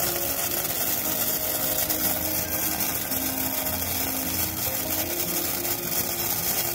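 Silver Rain Torch, a Sri Krishna Fireworks hand-held spark torch, burning with a steady hiss as it sprays its shower of silver sparks.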